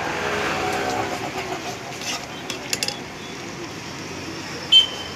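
Street-food stall ambience: a voice talking in the first two seconds over steady street noise. A few light metal clinks follow about two to three seconds in, and a sharper ringing clink comes near the end, like utensils against a metal pan.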